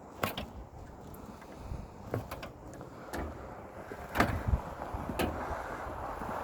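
Scattered sharp knocks and clanks, about six of them, the loudest about four seconds in, over a low rumble that grows toward the end.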